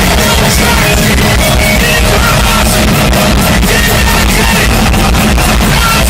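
Live rock band playing loudly, a full band sound at a steady high level.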